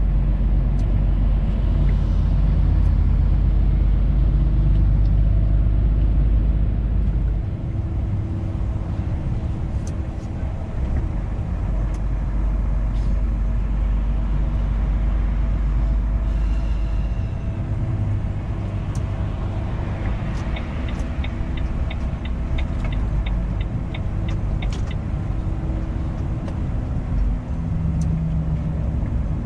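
Truck engine running under way, heard from inside the cab with steady road noise; the low engine drone eases off about seven seconds in. A few seconds past the middle comes a short run of quick, even clicks, about three a second.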